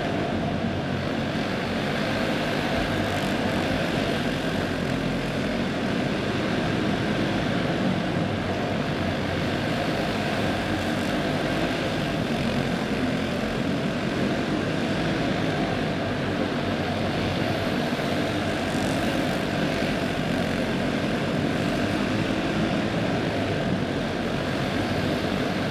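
Several karts' OHV clone single-cylinder four-stroke engines racing together, a steady overlapping buzz that keeps going without letting up, heard inside a large indoor arena.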